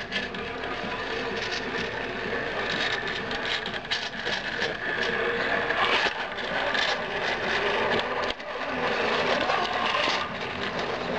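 Radio-controlled 6x6 scale crawler truck with a Novak Goat brushless motor, its drivetrain whirring steadily as it climbs over a wooden door threshold, with tyres and chassis scraping and knocking against the sill.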